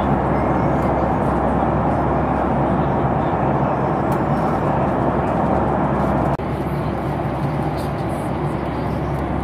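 Steady cabin noise of a Boeing 737 MAX 8 airliner in cruise: a constant rushing of air and engines with a low hum. It drops a little in level about six seconds in.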